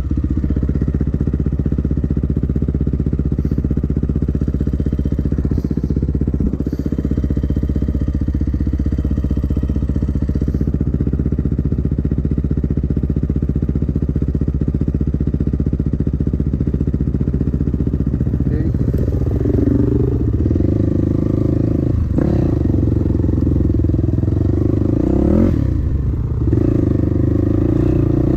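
Dirt bike engine running steadily at low revs; from about 19 seconds in it revs up and down repeatedly, with some clatter, as the bike rides along a rough trail.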